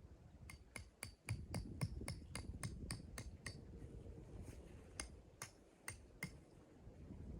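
A quick series of sharp, light knocks, about four a second for roughly three seconds, then four more spaced out after a pause.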